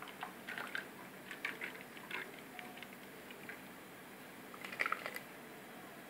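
Faint patter and light clicks of thick almond milk being poured from a mixer-grinder jar into a glass, with a short cluster of small clicks about five seconds in.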